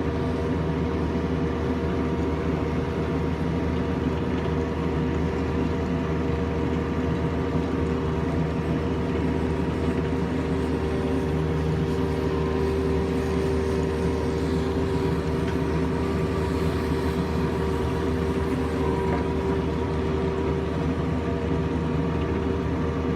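Mini excavator's diesel engine running at a steady, unchanging pitch.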